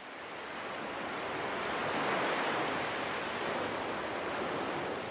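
Sea surf: a steady wash of waves, swelling up over the first two seconds and then holding even.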